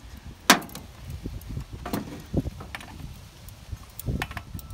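Pocket chainsaw multi-tool clicking and knocking against a Stihl chainsaw's bar nuts and guide bar as the bar and chain are adjusted. A few scattered sharp clicks, the loudest about half a second in, over a low rumble.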